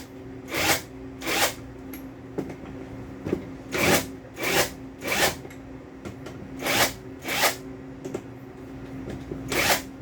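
Cordless impact wrench run in short trigger bursts, about eight in all, each a fraction of a second, working the fastenings of a shipping-container twistlock to open it. A steady low hum runs underneath.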